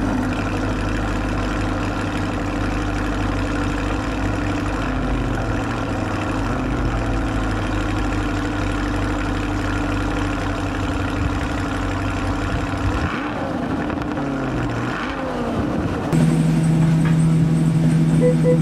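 A C8 Corvette's V8 engine idling steadily as the car backs slowly down a car-transporter ramp. About two seconds from the end the sound jumps to inside the car's cabin, where the idle hum is louder and steadier.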